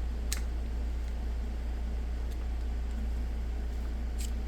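Two light clicks of a screwdriver tip against the plastic of a battery pack, prying at a glued-in cell: one just after the start and one near the end, over a steady low hum.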